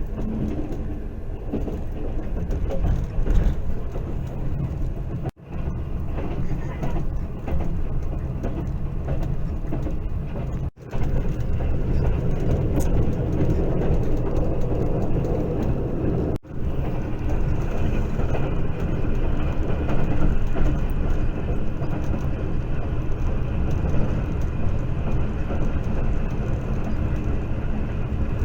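Passenger train running, heard from aboard: a steady low rumble of wheels on the track, cut off briefly three times.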